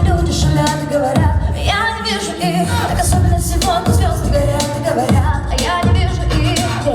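Music with a woman singing over a steady beat and strong bass.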